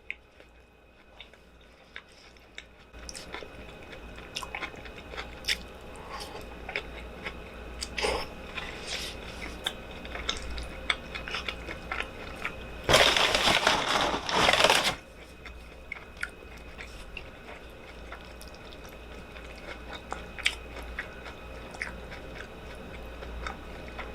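Close-up eating sounds from a burrito bowl: chewing and biting with small mouth and utensil clicks. About halfway through comes a loud, noisy stretch lasting about two seconds.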